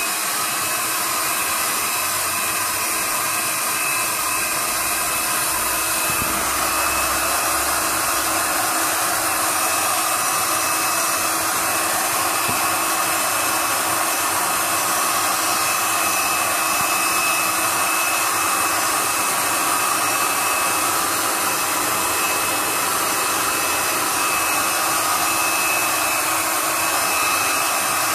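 Black+Decker heat gun running steadily, its fan blowing hot air with a faint steady whine, as it melts the wax cappings off a frame of sealed honeycomb.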